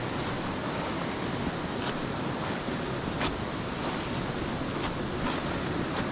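Steady rushing of a fast-flowing beck, with a few faint clicks over it, the clearest about three seconds in.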